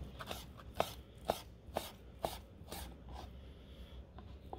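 A knife chopping raw beef on a wooden cutting board: steady knocks of the blade on the board, about two a second, growing fainter after about three seconds.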